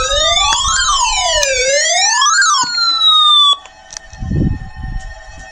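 Electronic siren wailing, its pitch sweeping up and down about every second and a half, with several falling tones laid over it. It cuts off suddenly about three and a half seconds in, leaving faint steady tones and a low thump.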